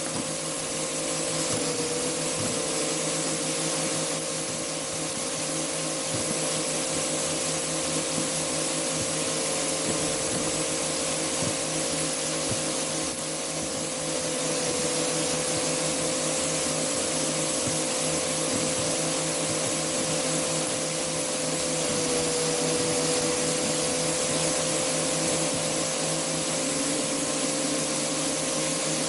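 Angle grinder running steadily in a wooden shredding box with a constant motor whine. The pitch sags briefly a few times as foam Nerf balls hit the spinning blade and are ground into crumbs.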